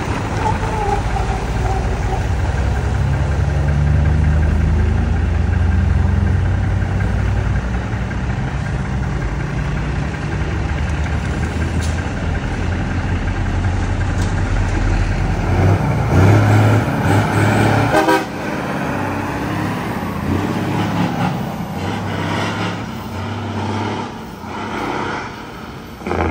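Diesel engines of heavy tractor-trailers running loud and low as they pass close by, easing off after about fifteen seconds. A vehicle horn toots around sixteen to eighteen seconds in, the loudest moment; after it, quieter passing traffic.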